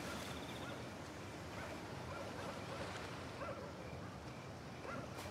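Faint outdoor ambience: a steady wash of noise with short, distant animal calls every second or so.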